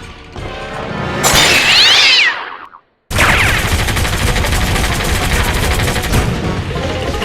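Cartoon soundtrack music with sound effects laid over it. A loud falling whistle-like sweep comes about a second in, and the sound cuts out briefly just before the three-second mark. Then a long run of rapid machine-gun fire plays over the music.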